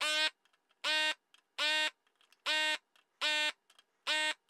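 Hakko FR301 desoldering gun's vacuum pump buzzing in six short bursts, a little under a second apart, as it is triggered pin by pin to suck molten solder out of the ISA slot's through-holes.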